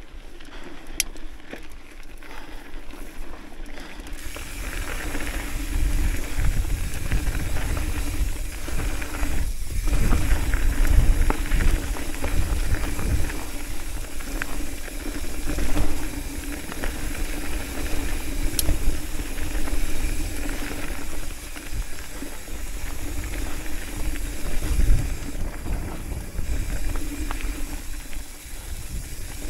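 Haro hardtail mountain bike descending a dirt and gravel trail: tyres hissing and crunching over the ground with small rattles, and wind rumbling on the microphone. It gets louder from about four seconds in, as the speed picks up.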